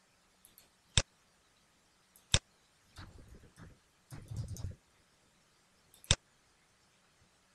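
Computer mouse clicking three times, sharp and well spaced, with a stretch of dull, rapid keyboard tapping in the middle as text is retyped.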